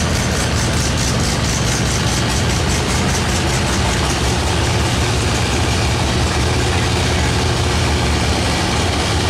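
Oliver 77 tractor's six-cylinder engine running steadily under heavy load as it drags a weight-transfer pulling sled.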